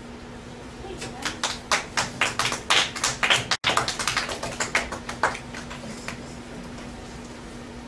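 A small group of children clapping: an irregular patter of claps that starts about a second in, is thickest for a couple of seconds, then thins out and stops about six seconds in, over a steady low hum.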